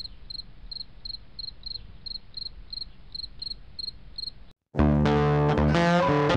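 Crickets chirping at an even pace, about three high chirps a second. Near the end it cuts out for a moment and loud music with distorted guitar begins.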